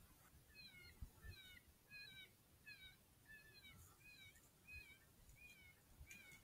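Electronic predator caller playing a coyote pup distress sound: a string of short, high yelping whines, about one every two-thirds of a second, heard faintly.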